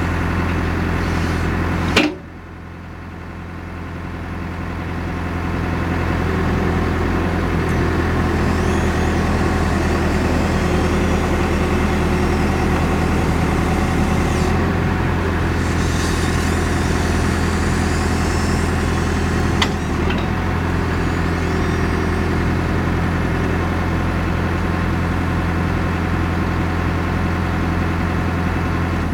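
Caterpillar 430D backhoe loader's diesel engine running, heard from inside the cab. There is a sharp knock about two seconds in; the sound then drops suddenly and builds back up over the next few seconds, and stays steady after that, with a short click about two-thirds of the way through.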